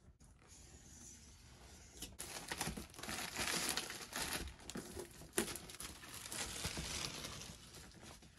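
Plastic shrink wrap being torn and pulled off a cardboard box, crinkling and crackling. It starts about two seconds in and goes on, with many sharp crackles, until just before the end.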